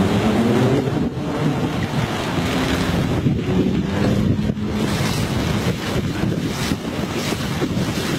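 Floodwater rushing across a flooded street, with wind buffeting the microphone. Under it runs a low engine hum that rises in pitch in the first second and again about four seconds in.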